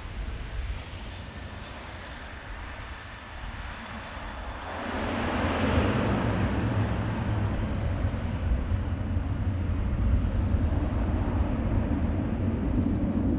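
Dash 8-400 twin turboprop airliner on its landing roll, its engines and propellers a steady roar. About five seconds in the roar swells sharply and stays loud, typical of the propellers going into reverse to slow the aircraft.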